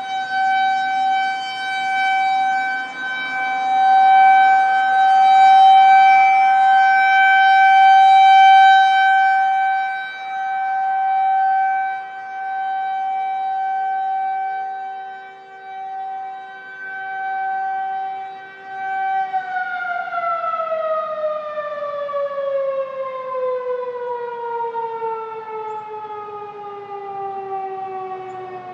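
Federal Signal 2001-130 rotating electromechanical outdoor warning siren sounding a steady full-alert tone. Its loudness swells and fades as the horn turns. About two-thirds of the way through, power is cut and the siren winds down, its pitch gliding steadily lower, marking the end of the test.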